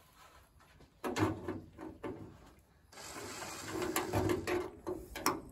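DeWalt cordless drill with a long bit drilling through the sheet-metal wall of a combine's grain elevator housing, running in a short burst about a second in and then a longer steady run from about three seconds in.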